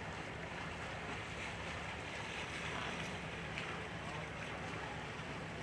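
A boat's engine running steadily, a low drone under a rush of water and wind.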